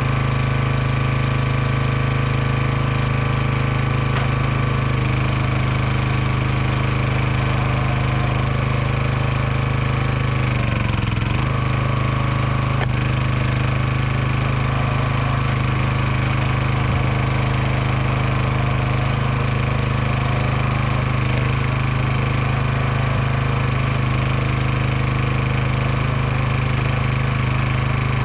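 Gas log splitter's small engine running steadily at a constant pitch, with a brief dip in pitch about ten seconds in.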